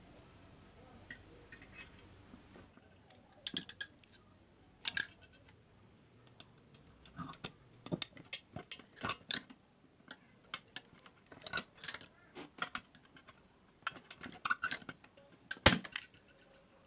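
Hand pop-rivet gun worked on the end of a galvanised light-steel hollow tube: an irregular string of metallic clicks and clacks as the handles are squeezed, with the loudest, a single sharp snap near the end, as the rivet sets.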